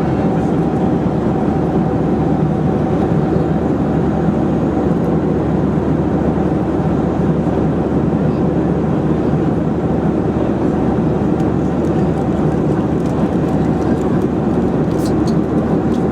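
Boeing 737-400 cabin noise at cruise altitude: a steady rush of airflow with the drone of its CFM56 engines and a faint steady hum, unchanging throughout.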